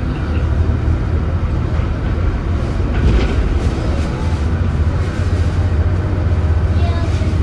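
Leyland Atlantean AN68/1R double-decker bus's Leyland O.680 six-cylinder diesel running, a steady low drone with brief rattles from the body about three and four seconds in.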